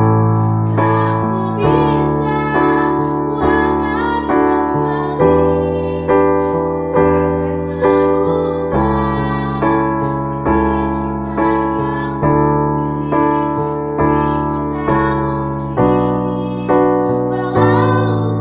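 Piano or keyboard accompaniment to a slow song, with chords struck about once a second. A girl's voice sings over it in places.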